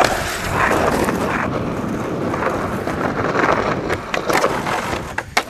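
Skateboard wheels rolling over rough concrete, a steady gritty rumble, with a few sharp clacks of the board against the concrete near the end.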